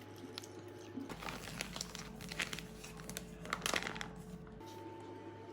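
Plastic packaging crinkling and rustling as it is handled, a dense run of crackles that is busiest in the middle and stops near the end.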